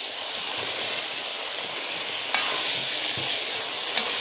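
Tomato sauce with pieces of salted fish sizzling hard in a stone-coated frying pan as a spatula stirs it, with steady hissing. Two light knocks of the spatula against the pan, about two seconds in and near the end.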